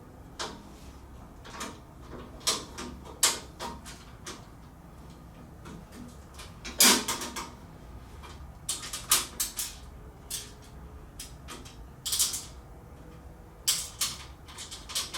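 Steel tool-cart parts and hardware clanking and clicking as they are handled and fitted together, in irregular knocks, the loudest about seven seconds in, with a brief scrape near the end.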